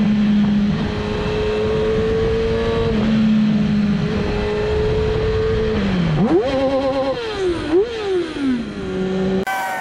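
A 2007 Yamaha R6 race bike's inline-four engine heard onboard at speed in fourth gear, holding a steady note that climbs slowly. About six seconds in the revs drop and rise several times in quick swings, and near the end the sound changes abruptly.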